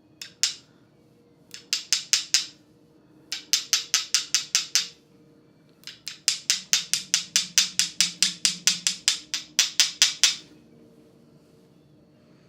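Small bottle of thick pepper extract being knocked repeatedly to get the paste to come out, giving bursts of rapid, sharp clicks of about six a second. The bursts grow longer, ending in a run of about two dozen clicks; the extract is so thick that it won't pour.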